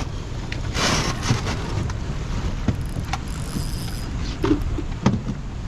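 Wind rumbling on the microphone over the river. About a second in there is a brief rush of noise, and a few light knocks come from the boat.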